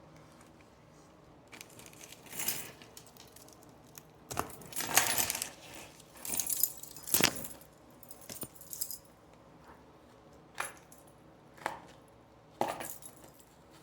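Trading-card pack wrapper crinkling and cards being handled, in short irregular rustling bursts.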